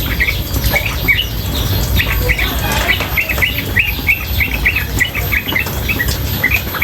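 Female yellow-vented bulbul (trucukan) calling in short chirps, with a fast run of about ten notes near the middle, over a steady low rush of water.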